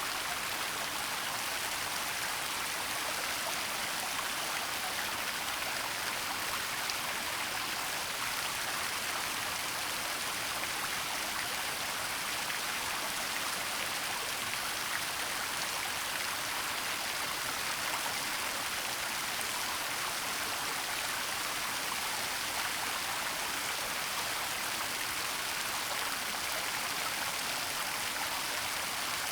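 Waterfall running steadily: an even rush of falling water with no change throughout.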